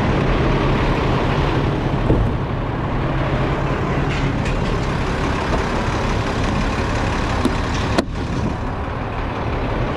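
A diesel truck engine idling steadily close by, with one sharp click about eight seconds in.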